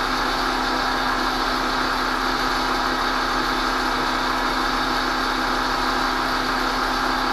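Bench grinder motor running steadily with its wheel spinning freely, a constant hum with no grinding contact.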